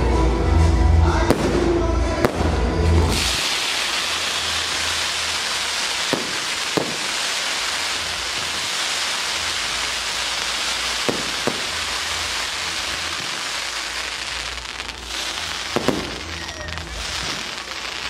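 Fireworks: a dense, continuous hissing rush of many rockets launching starts about three seconds in and fades out near the end. A handful of sharp single bangs ring out through it.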